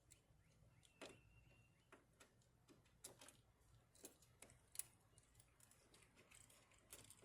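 Near silence with faint, irregular clicks and light taps of hand tools and parts being handled.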